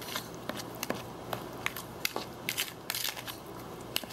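A spoon stirring pumpkin pie filling in a glazed ceramic mixing bowl to break up the eggs: irregular clicks and scrapes of the spoon against the bowl, a few a second.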